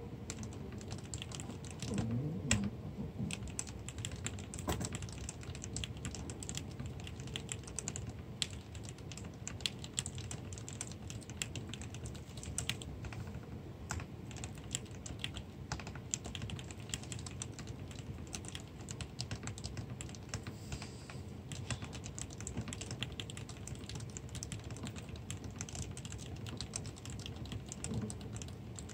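Typing on an aluminium-cased mechanical keyboard fitted with lubricated Cherry MX RGB Black linear switches and tuned stabilizers: a dense, continuous run of keystrokes.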